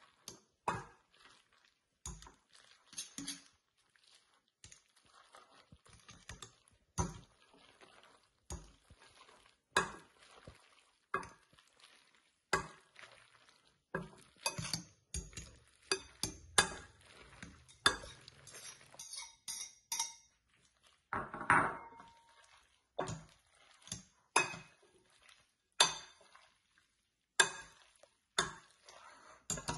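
A plastic spaghetti server tossing egg-coated spaghetti in a glass mixing bowl, knocking and scraping against the glass in irregular clinks, one or two a second. One knock about twenty seconds in makes the glass bowl ring briefly.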